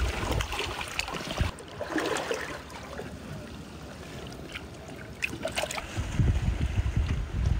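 Wind buffeting the microphone in low gusts, for about the first second and a half and again from about six seconds in, with water trickling and dripping in a rock pool in the quieter stretch between.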